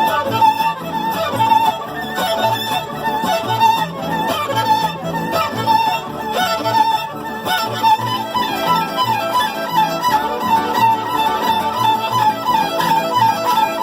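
Mariachi band playing, with violins carrying the melody over a steady, pulsing bass and rhythm accompaniment.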